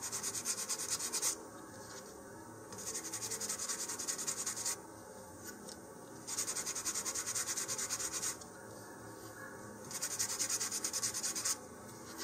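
150-grit sandpaper on a sanding tee rubbed briskly back and forth over a small balsa wood fin, smoothing its surface with the grain. It comes in four bouts of quick strokes with short pauses between them.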